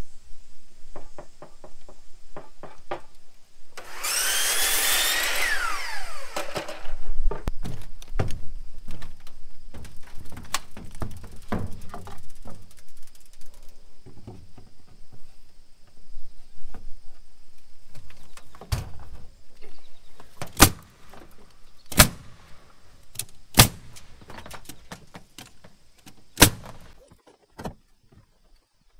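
A power saw cuts a pine shiplap board for about three seconds, its motor pitch falling as the blade winds down. Scattered wooden knocks follow as boards and tools are handled, then several sharp single hits near the end.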